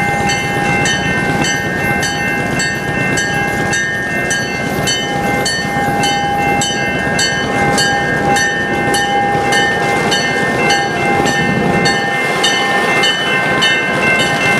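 Railroad crossing bell ringing at about two strikes a second, over the steady rumble of passenger coaches rolling across the crossing. A diesel locomotive reaches the crossing near the end.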